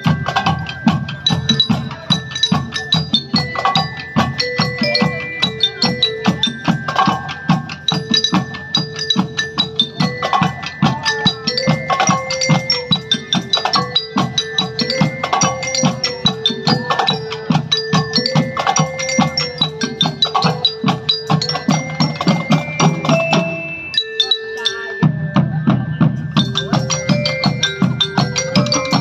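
Marching percussion band playing: snare and bass drums keep a fast, steady beat under a melody on marching glockenspiels. The drums break off briefly late on while the melody carries on.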